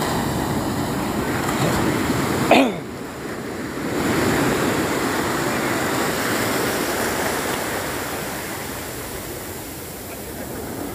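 Sea waves washing up a sandy beach, foamy surf rushing over the sand. There is a brief louder burst about two and a half seconds in, then the wash swells again and fades off near the end.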